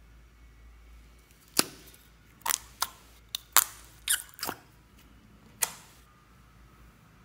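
Sharp plastic clicks and crackles from a small, thin plastic cup of slime being gripped and squeezed, about eight separate snaps over four seconds, with a brief squeak around the middle.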